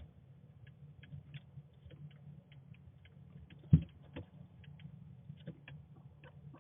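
Sleeping chicken on its roost making soft snoring sounds: a low, steady rumble with many small irregular clicks. There is one loud thump about four seconds in and a smaller one just after.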